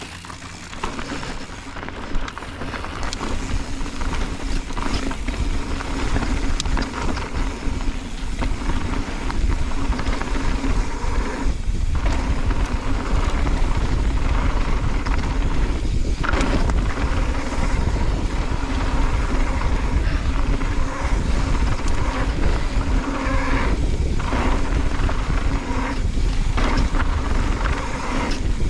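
Mountain bike descending a dirt and gravel trail, heard from a camera on the bike or rider: wind buffeting the microphone, tyres rolling over loose gravel and the bike rattling over bumps. It builds over the first few seconds as speed picks up.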